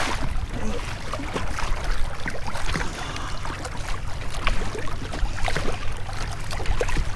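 Wind buffeting the microphone in a steady low rumble, with water sloshing around the boat and scattered small knocks and clicks.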